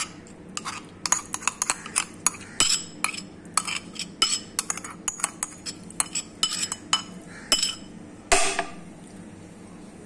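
Metal spoon repeatedly clinking and scraping against a ceramic bowl as grated ginger is scraped out into a frying pan, a few sharp clinks a second. There is a longer, louder scrape about eight seconds in.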